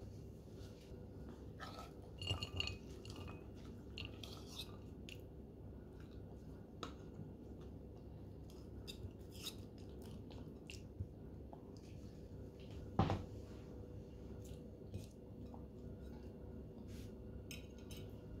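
Salad being tipped from a metal mixing bowl onto a china plate: faint scattered clinks, scrapes and soft knocks of metal on crockery, with a single louder knock about 13 seconds in. A faint steady hum sits underneath.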